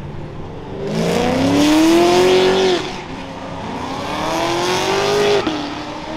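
A car accelerating hard: its engine revs climb steeply, drop sharply at an upshift about three seconds in, then climb again through the next gear before another shift near the end, with a loud rasping exhaust.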